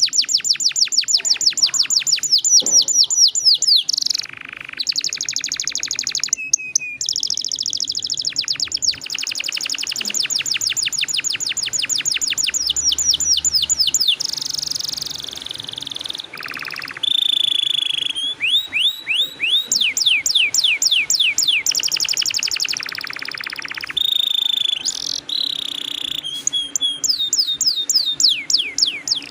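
Domestic canary singing a long rolling song: rapid trills of quickly repeated falling notes, switching to a new trill phrase every few seconds.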